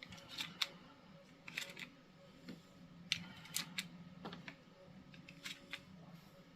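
Scattered light clicks and taps of small hard objects being handled, about a dozen spread irregularly, over a faint steady hum.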